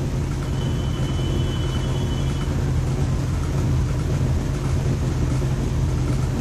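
Steady low hum and whir of an electric motor running without change.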